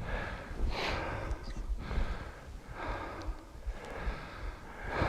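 A person breathing hard, several heavy breaths in and out about once a second, out of breath from running.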